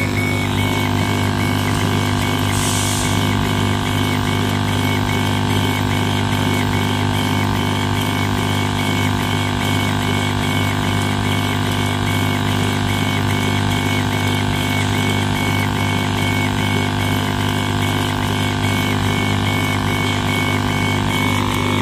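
STS1325H stone CNC machine running its laser head back and forth while laser-engraving a picture into a granite slab: a steady mechanical hum and whine with a regular pulse about twice a second.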